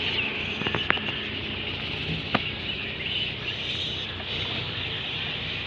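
Birds chirping over a steady high hiss of outdoor ambience, with a few sharp clicks about a second in and one louder click a little later.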